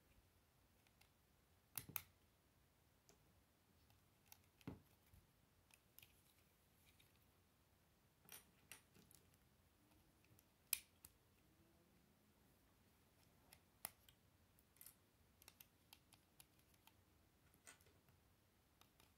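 Plastic Lego bricks being pressed onto a small model and handled: about a dozen sharp, scattered clicks over near silence, the loudest about eleven seconds in.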